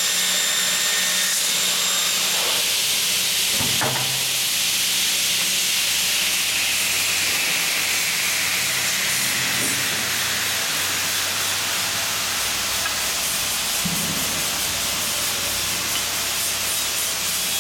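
JELY JSD-350W two-blade double mitre saw running with a steady hiss, with a single knock about four seconds in.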